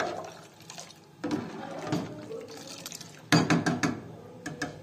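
Kitchen pots, dishes and utensils knocking and clinking, with a cluster of several sharp clanks about three seconds in, the loudest part.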